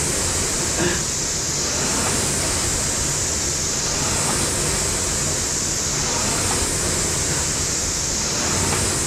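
Air rowing machine's fan flywheel whooshing, swelling and easing with each stroke about once every two seconds.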